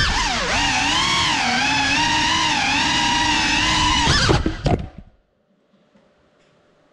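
GEPRC Cinelog35 cinewhoop's quadcopter motors and propellers whining, the pitch rising and falling with throttle. About four and a half seconds in they stutter and cut off as the drone stops, leaving only a faint hum.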